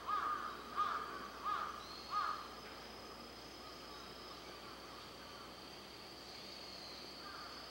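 A bird giving four calls about two-thirds of a second apart, each one pitched and arched. After them a steady, high-pitched insect trill carries on alone.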